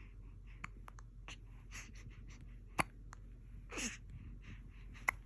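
Baby hiccuping: two sharp hiccups about two and a half seconds apart, with a short breathy sound between them.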